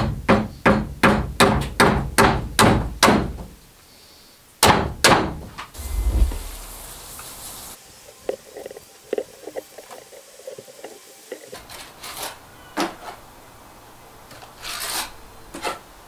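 A hammer knocks rapidly on the wooden window frame, about four blows a second for some three seconds, then two heavier blows, as the wrongly fitted sill is knocked off the softwood frame. After that come a few scattered light knocks.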